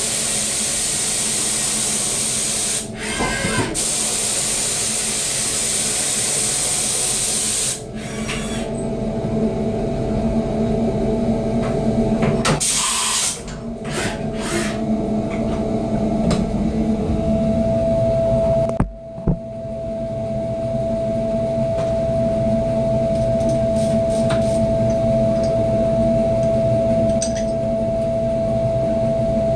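CNC vertical milling machine running, its spindle and cutter machining a cast part with a steady hum and a high whine that grows clearer in the second half. A loud steady hiss covers the first eight seconds or so, and the sound changes abruptly a few times.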